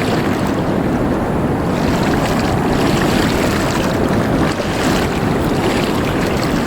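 Wind buffeting the microphone over shallow surf and moving water: a steady, loud rushing noise, heaviest in the low range, with no distinct events.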